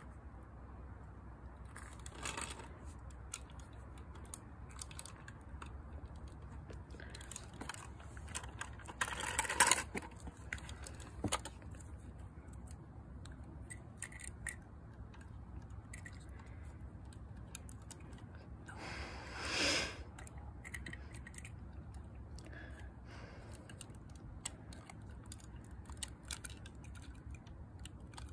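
Light clicks and rattles of a die-cast model garbage truck and small plastic toy carts being handled on concrete. There are brief louder bursts of noise about ten seconds in and again near twenty seconds.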